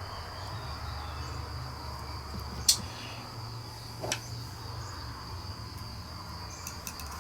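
Two short, sharp clicks of small parts being handled, a second and a half apart, over a steady faint high-pitched whine and a low hum.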